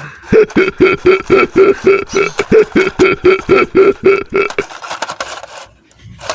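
A rapid run of short, laugh-like voiced pulses at a steady pitch, about five a second, that stops a little past the middle.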